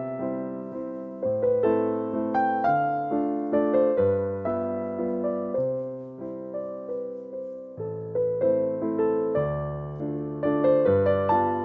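Background piano music: a gentle melody of struck notes over low sustained bass notes, in a steady rhythm.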